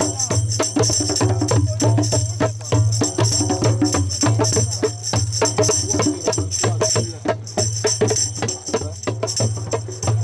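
Music with fast, dense hand percussion, the strikes coming several times a second, over a steady low hum.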